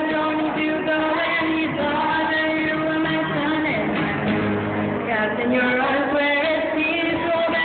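A woman singing a song into a handheld microphone amplified through PA speakers, her voice holding and bending long sung notes.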